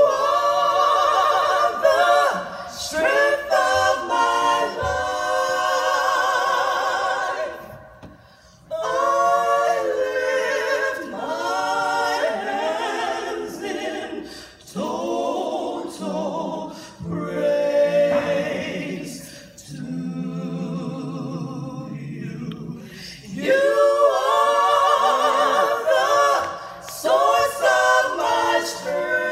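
A vocal quartet of women singing a cappella, with wavering vibrato on held notes, phrases broken by short pauses, and a softer, lower passage about two-thirds of the way through.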